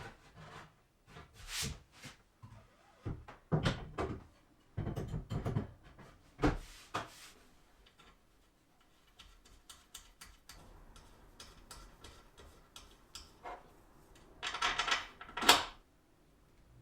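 Workshop handling sounds: scattered knocks, clacks and short scrapes of wooden parts and tools being picked up and set down, with a few quieter clicks in the middle and a louder cluster of knocks near the end.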